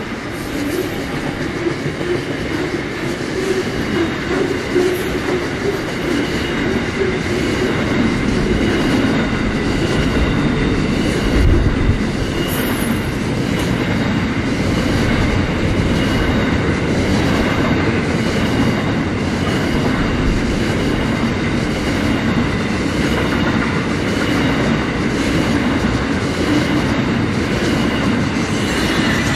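Intermodal freight train wagons rolling past close by: a steady rumble of wheels on rail, with wheels clicking over rail joints at a regular beat and a faint steady high ringing from the wheels. There is a single low thump about eleven seconds in.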